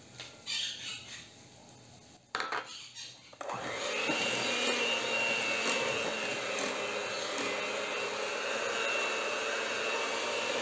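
Electric hand mixer switching on about a third of the way in and then running steadily, its beaters whipping egg yolks into creamed margarine and sugar. Before it starts there are a few soft handling noises and a click.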